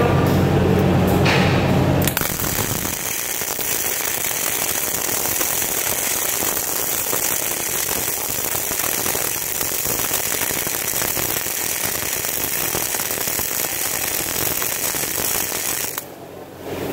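MIG welding arc from a Lincoln Electric welder crackling steadily as a bead is run on thin flat sheet metal. It strikes about two seconds in after a low hum and cuts off sharply near the end. The machine is set a little too hot for the thin metal, enough to make it bend inwards at the weld.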